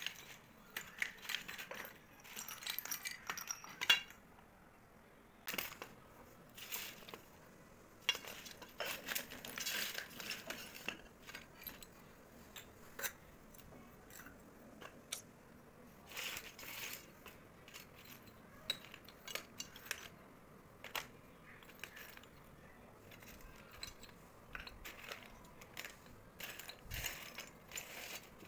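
Broken terracotta clay pot shards being sifted by hand in a steel bowl: fired clay clinks and scrapes against clay and metal. The clinks come in irregular clusters with brief lulls.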